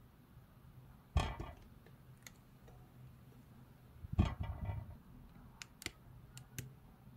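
Makeup blending sponges handled close up: two brief soft rustling thuds, about a second in and about four seconds in, then a few light clicks, over a low steady hum.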